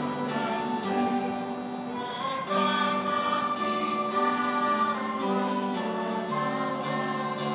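A group of children singing a song together, holding long notes.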